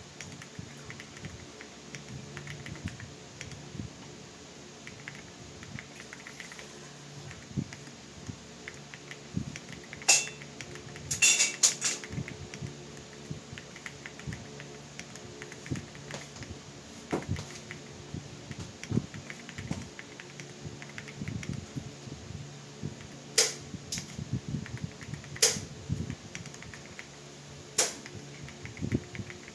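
Typing on an Akko 5075s mechanical keyboard with pre-lubed Akko Blue Pro switches and OSA-profile PBT keycaps: a steady run of soft keystrokes. A few much louder sharp clacks stand out, a cluster about ten to twelve seconds in and single ones near the end.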